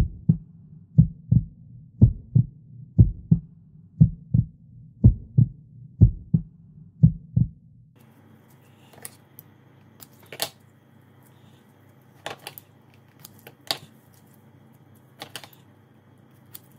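A low double thump about once a second, evenly spaced like a heartbeat, stops about halfway through. Then come a few sharp, irregular clicks, some in quick pairs: kitchen scissors snipping through sausage-filled bread dough.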